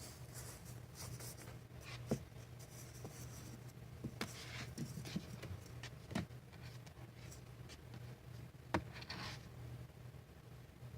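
Baby raccoon hiccuping: short, sharp clicks every second or two, loudest about two seconds and nine seconds in. Beneath them run scratchy rustling and a low steady hum.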